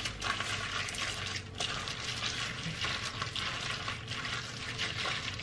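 Plastic bag crinkling and rustling steadily as it is squeezed and worked by hand around marinating chicken.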